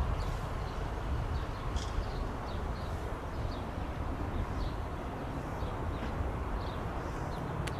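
Outdoor ambience: small birds chirping in short calls every second or so over a steady low rumble, with one sharp click near the end.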